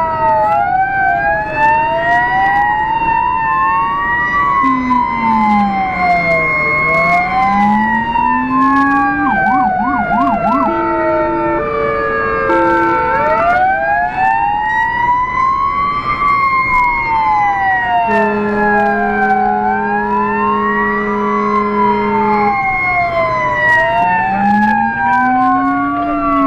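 Renault GBA fire engine's siren wailing, several rising-and-falling tones overlapping. About nine seconds in it switches briefly to a fast warble and then a stepped two-tone pattern, and from about eighteen to twenty-two seconds a steady horn blast sounds over the wail.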